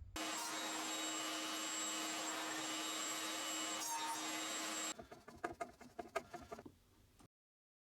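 A power tool running steadily on wood, stopping abruptly about five seconds in, followed by a couple of seconds of irregular scraping strokes on wood.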